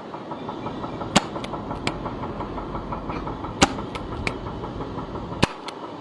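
Gas-powered gel blaster revolver, a Webley Mark VI replica, firing three shots about two seconds apart, each a sharp pop, with lighter clicks between them. A steady engine-like drone with a fast beat runs underneath.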